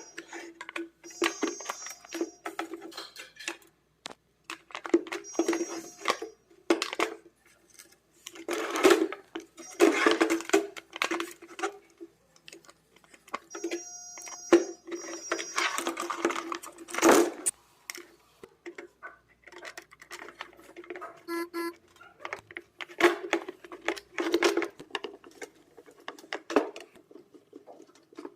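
Metal parts of an electric room heater being handled and fitted by hand: irregular clinks, knocks and rattles, over a steady low hum and short bursts of high-pitched tones.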